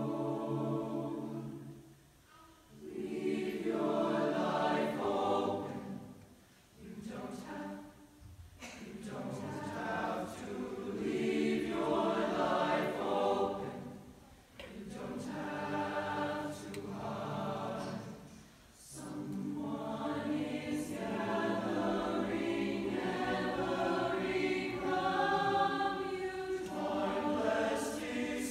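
A large chamber choir singing unaccompanied in long held chords. The phrases are separated by short pauses where the sound briefly dies away.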